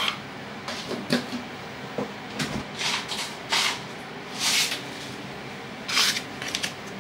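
Kitchen handling noises: a string of short knocks and rustles as containers are picked up, set down and put away, with a cupboard opening or closing among them.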